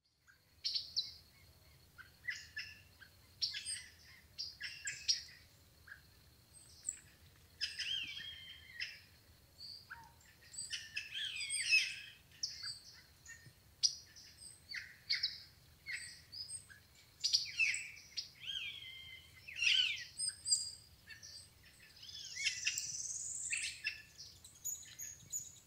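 Several wild birds calling and singing in a mixed chorus of short chirps and gliding whistles, one after another. A thin, steady high tone runs underneath for about the first ten seconds.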